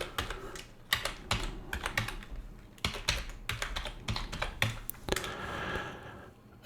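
Typing on a computer keyboard: a run of irregular key clicks as a search query is entered.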